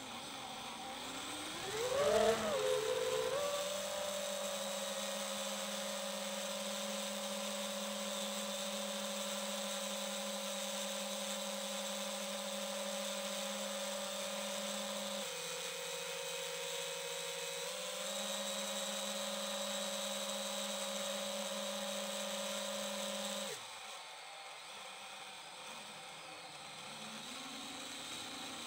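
FPV quadcopter's brushless motors whining. The pitch climbs sharply about two seconds in, holds steady with a brief dip past the middle, then drops off abruptly about three-quarters of the way through as the throttle is chopped, leaving a faint hiss.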